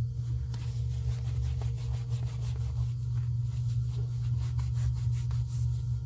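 A steady low hum runs throughout, with faint rubbing and light clicks over it, typical of vinyl samples being handled.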